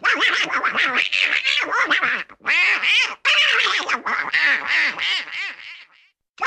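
Donald Duck's raspy cartoon voice quacking and squawking in rapid, garbled bursts, with two brief breaks about two and three seconds in, falling silent about half a second before the end.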